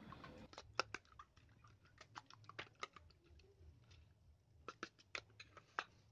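Metal spoon beating an egg with chopped onion in a small stainless steel bowl: faint, irregular clicks of the spoon against the bowl that stop shortly before the end.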